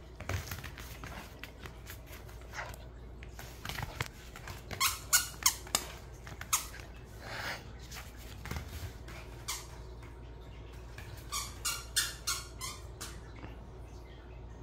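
A dog's rubber squeaky toy squeaking in quick bursts as the toy poodle bites and chews it, in two main flurries, one about five seconds in and another near the end, with a few dull thumps between.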